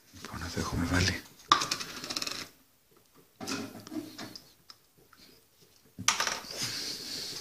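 A wooden stick stirring and scraping a thick paste inside a small glass jar, clinking against the glass, in four short spells of clattering with brief pauses between.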